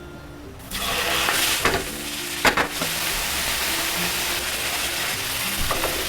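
Food sizzling in a hot pan, starting suddenly about a second in, with a few sharp clicks of a utensil against the pan.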